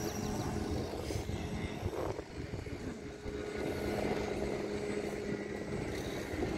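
Steady drone of a distant motor engine, with a constant low rumble underneath.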